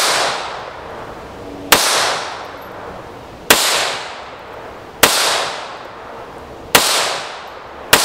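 Deutsche Werke Ortgies pocket pistol in .32 ACP firing five slow, deliberate shots, one every one and a half to two seconds. Each shot is a sharp crack followed by a fading echo.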